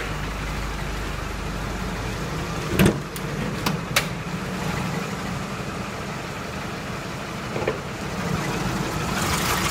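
Nissan YD25 2.5-litre four-cylinder diesel idling steadily once warm, with no knock; the owner says the knock has gone. A few sharp clicks are heard about three to four seconds in.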